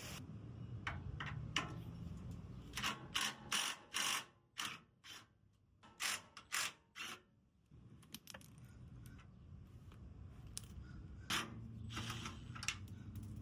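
Socket ratchet clicking in short runs of strokes as the bolts holding a front skid plate are loosened; it pauses for a few seconds in the middle, then clicks again near the end.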